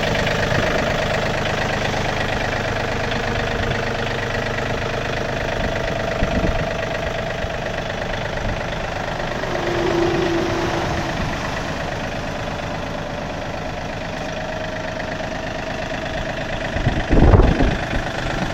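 2001 John Deere 4300 compact tractor's 32 hp diesel engine running steadily at idle. A short steady tone comes in about ten seconds in, and a few loud knocks come near the end.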